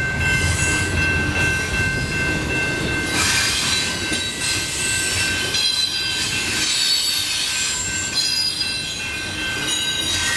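Double-stack container freight cars rolling past, their steel wheels squealing steadily on the rail over the rumble and clatter of the train. Swells of rushing noise come as each car passes.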